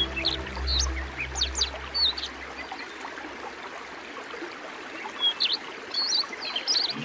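Background music fades out about a third of the way in, leaving small birds chirping and twittering in quick, high, short calls over a steady hiss; the music comes back at the very end.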